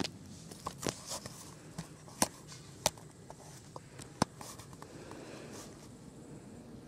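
Footsteps on stone paving: a handful of sharp, irregular taps, the loudest three spaced a second or so apart.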